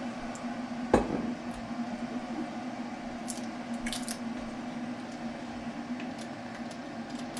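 Small crinkling, scratchy ticks of the inner seal being picked and peeled off a spice jar of cloves, with one sharp knock about a second in, over a steady low hum.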